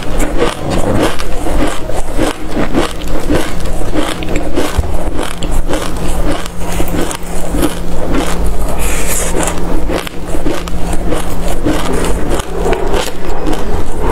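Close-miked chewing of a mouthful of dry black seeds: a dense, irregular run of small crunches and crackles, mixed with a soup spoon scooping and scraping seeds in a metal tray. A steady low hum runs underneath.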